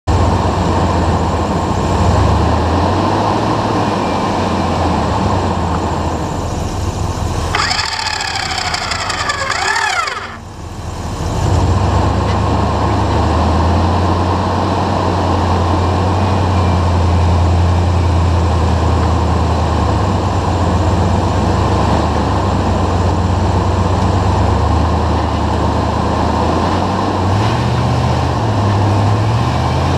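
Off-road rock-crawling vehicle's engine running steadily at low revs, with the pitch rising near the end as it revs. About eight seconds in, a few seconds of higher falling whine-like tones sound over it.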